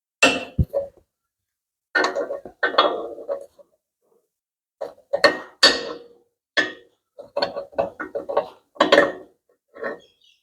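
Metal tools and parts clinking and clanking in a run of short, sharp knocks with a brief ring, in irregular clusters.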